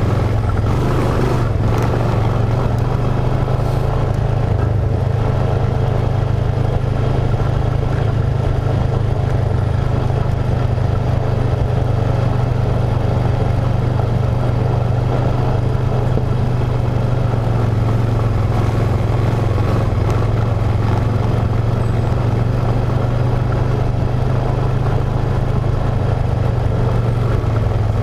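ATV engine running at a steady cruising pace, a constant low drone with no change in speed.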